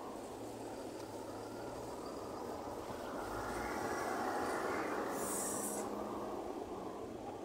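Road traffic: cars and a lorry driving past close by, the tyre and engine noise swelling in the middle as vehicles pass. A short high hiss comes about five seconds in.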